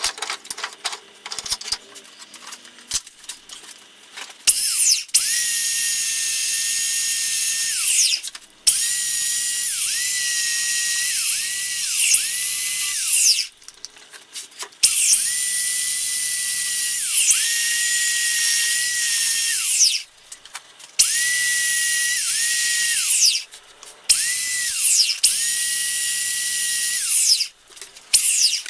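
Small handheld electric sander run in six bursts of a few seconds each. It gives a high-pitched motor whine that sags in pitch whenever it is pressed onto the wood and recovers as it eases off. Light handling knocks and clicks come before the first run.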